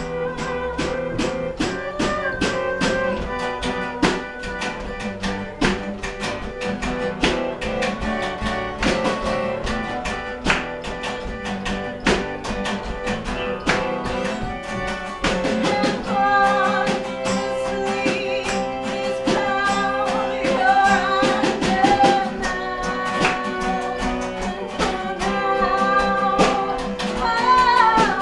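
Live band music: strummed acoustic guitars over a small drum kit, with voices singing, most clearly in the second half.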